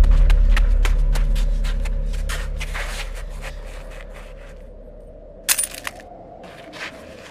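A low rumbling drone fading away, with scattered crackles and clicks over it, then a sharp click about five and a half seconds in.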